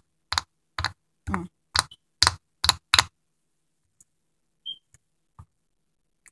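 A plastic drinking straw jabbed again and again at the sealed plastic lid of a shake cup, trying to punch through: about eight sharp clicks, roughly two a second, for three seconds. A short squeak and a faint tap follow.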